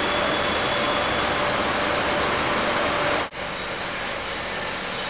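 Steady background machinery noise of a large warehouse, a constant hiss with a faint whine. About three seconds in it cuts abruptly to a slightly quieter, similar steady noise.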